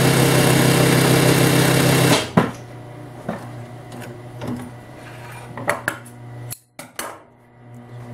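Singer 196K5 industrial lockstitch sewing machine stitching through denim at its smallest stitch length, a steady fast run that stops abruptly about two seconds in with a clunk. Afterwards the motor hums quietly while the handwheel is turned by hand, with a few light clicks and rustles.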